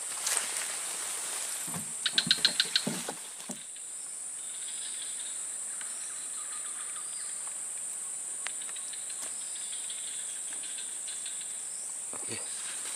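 Steady high-pitched drone of swamp insects. About two seconds in, a quick run of about seven sharp chirps in under a second, with a few soft low thumps around it.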